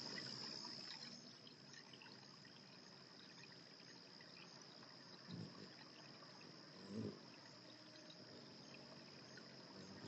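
Faint outdoor ambience: a steady, high-pitched insect trill over a low hiss. Two soft, low thumps come about halfway through.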